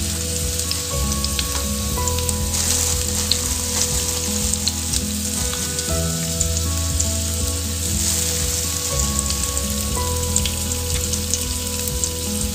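Oil sizzling steadily in a frying pan, with fine crackles, as chicken bones and vegetables brown in it.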